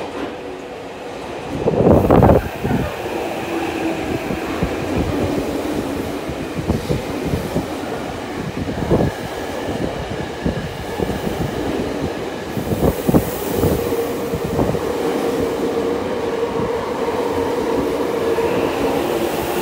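Eidan 8000 series subway train running through an underground station platform without stopping. Its wheels knock rapidly over the rails. The sound rises sharply to its loudest about two seconds in as the train comes alongside, and a steady tone joins in over the second half.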